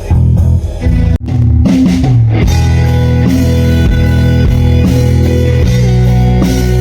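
Rock band playing at a sound check: electric guitar with bass and drum kit. After a short break about a second in, the guitar holds long sustained chords.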